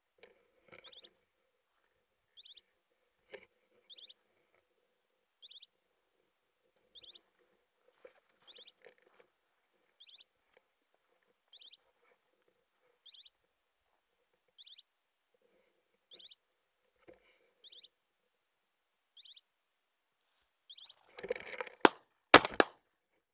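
A short descending electronic chirp repeats about every one and a half seconds, typical of a pointing dog's beeper collar in point mode. Near the end comes a brief flurry, then two shotgun shots about half a second apart.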